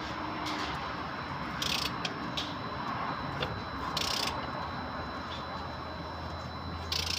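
Scattered metal clicks and three short rasping strokes, a couple of seconds apart, over a steady low background hum, like a hand tool at work on metal.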